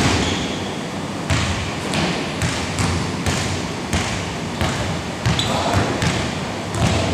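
Basketball bouncing on a hardwood gym court: irregular thuds, roughly one or two a second, ringing in the large hall, with players' voices behind.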